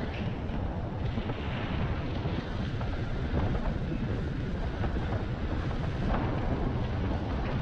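Wind buffeting the microphone of a rider moving along on an electric unicycle: a steady, fluttering low rumble with a few faint ticks.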